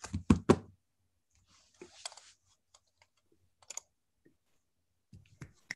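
A few sharp clicks at a computer, with a short soft rustle between them, over a video-call line that drops to dead silence in the gaps.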